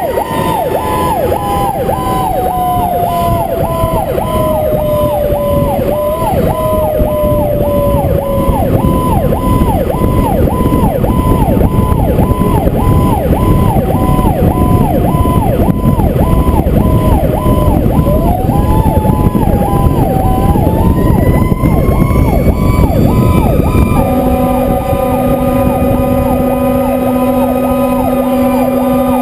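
Fire truck on an emergency run: an electronic siren yelping rapidly, about two cycles a second, over the truck's engine and road noise, with a mechanical siren slowly falling in pitch and then winding back up. Near the end the yelp gives way to a long, steady air-horn blast.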